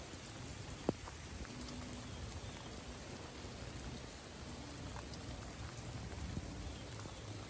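Light rain falling: a soft, even hiss with scattered ticks of individual drops.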